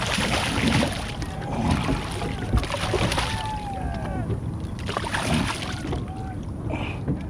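A small fishing boat on open water: steady low rumble with wind and water noise. A few faint short calls glide up and down in pitch, about two and three and a half seconds in.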